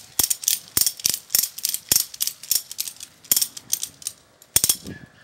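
Ratchet strap being tightened by hand: a run of sharp ratchet clicks, about three a second, that stops about a second before the end.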